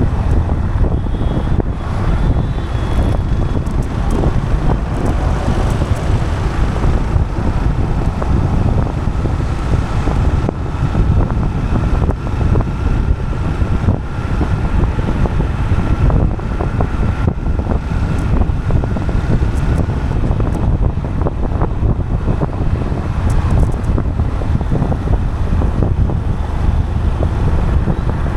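Steady wind noise buffeting the microphone over a continuous low road rumble from travel on asphalt, with a faint steady whine in the middle stretch.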